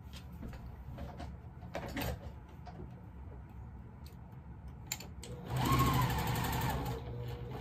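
Electric sewing machine stitching patchwork pieces. It starts about five seconds in with a couple of clicks, runs fast for a second or two, then slows to a quieter steady run. Before that there are faint clicks and rustles of fabric being handled.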